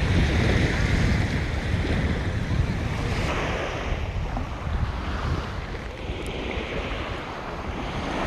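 Surf washing onto a beach in repeated swells, with wind rumbling on the microphone.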